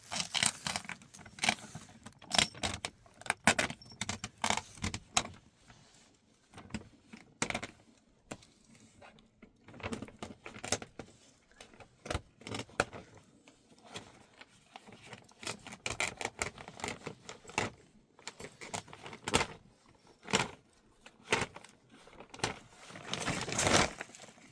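Irregular handling noises: scattered clinks, clatters and rustles as objects are moved about, with a longer, louder rustle near the end.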